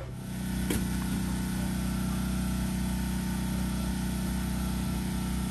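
An engine runs steadily with an even, unchanging hum. There is one short click about three-quarters of a second in.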